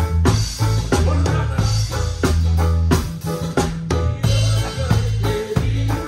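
Live band playing: a drum kit with kick and snare hits over a steady bass line and guitar, heard close up from right behind the drums.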